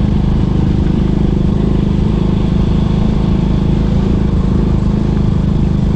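Honda Biz 100 step-through motorcycle's small single-cylinder four-stroke engine running steadily under heavy load while climbing a steep loose-gravel mountain road.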